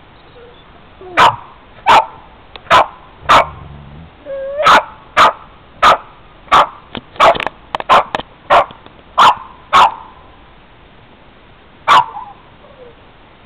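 Boston terrier barking, a run of about a dozen sharp barks roughly one every two-thirds of a second, then a single last bark after a short pause.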